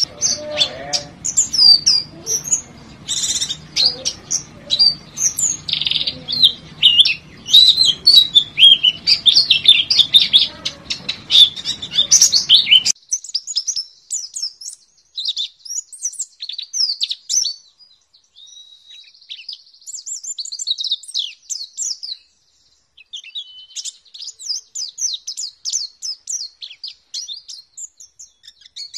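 White-eye (pleci, Zosterops) singing a rapid, high-pitched twittering song of dense runs of short chirps and trills, broken by a brief pause about three quarters of the way through. A low background hiss and hum under the first half cuts off suddenly, leaving the song clean.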